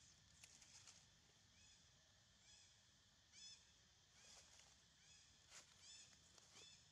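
Faint, short, high chirping calls from an animal, repeated about once a second, with a few soft clicks in between.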